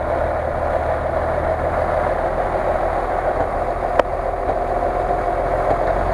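Modified Jeep Cherokee off-road truck's engine running steadily while bogged in mud, with a single sharp click about four seconds in.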